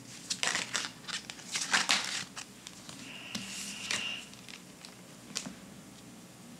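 Oracle cards being shuffled by hand and laid onto a cloth-covered table: a quick run of papery flicks and slaps in the first couple of seconds, then quieter card handling with one more tap near the end. A faint high steady tone sounds for about a second in the middle.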